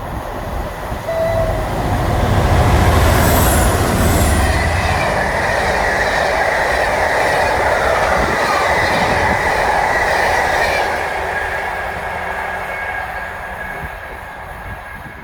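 Class 47 diesel locomotives with a train passing close by: the locomotive's engine is loudest about two to five seconds in, followed by the steady rumble and rail noise of the passing train with a held squeal from the wheels, which fades away after about eleven seconds.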